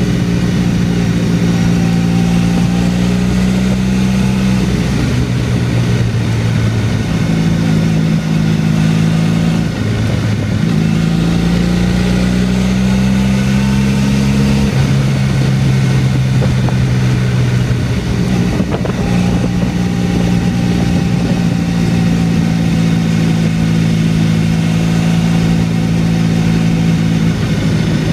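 Motorcycle engine running at mid revs while riding, with wind rush. The engine note steps down and back up several times, at about 5, 10, 15 and 19 seconds in, as the revs change through the bends.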